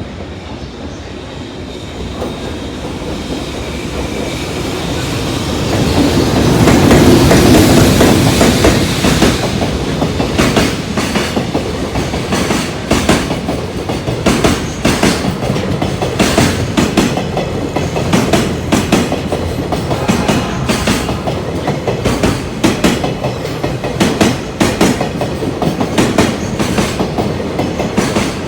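A freight train passing close by. It grows louder to its peak about seven seconds in as the head end goes past, then its wagons run by with a steady clickety-clack of wheels over the rail joints.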